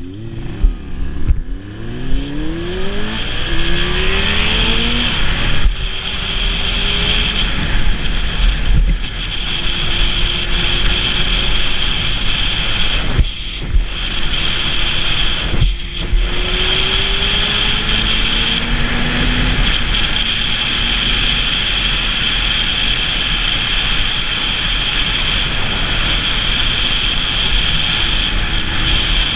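Sport motorcycle engine accelerating away from a stop, its pitch climbing and dropping back as it shifts up several times, then running steadily at cruising speed. Loud wind rush over the helmet-mounted microphone runs underneath.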